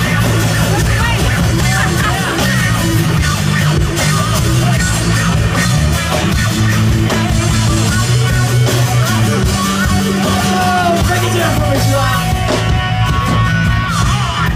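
Live band playing rock music with guitars, bass and drums, amplified through large outdoor PA speakers.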